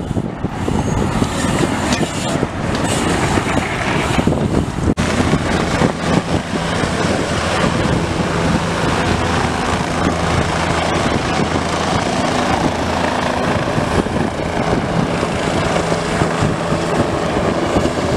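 Helicopter lifting off from a rooftop helipad: steady, loud rotor and turbine noise with a constant low hum. It follows an abrupt cut about five seconds in, before which there is rougher outdoor noise.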